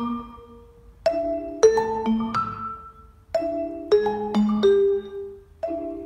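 Background music: a light melody of struck notes that ring and fade, in short phrases of a few notes each with brief gaps between them.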